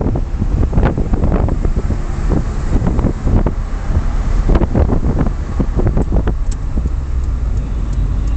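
Mazda 323F engine running at a steady speed through a 50 mm straight iron exhaust with the stock manifolds and final muffler, fed by a BMC CDA air intake, giving a deep low rumble with no revving. Wind buffets the microphone in irregular gusts.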